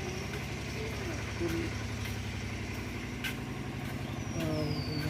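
Engine idling steadily with an even low pulse.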